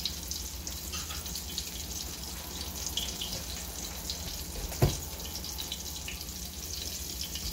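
Breaded porgy fillet frying in a skillet of hot oil, sizzling steadily with many small pops. One dull thump about five seconds in stands out as the loudest sound.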